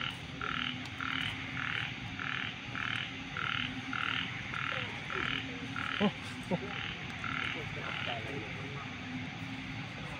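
Frog calling in a steady series of short croaks, a little under two a second, stopping about eight seconds in. A couple of brief chirps break in about six seconds in.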